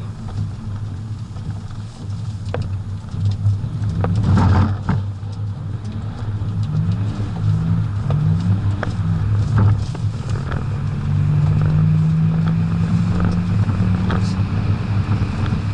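BMW 535d's twin-turbo straight-six diesel pulling hard, heard from inside the cabin: the engine note climbs in short rises through the gears, then holds a steady higher note, over constant tyre and road noise on a wet track with a few knocks from the road.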